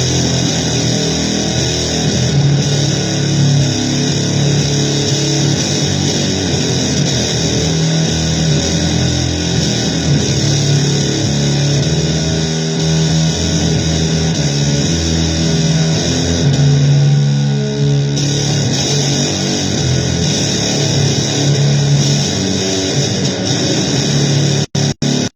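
Loud, distorted blues-guitar noise music: a dense, steady wash over low held notes, broken by three brief cuts to silence near the end.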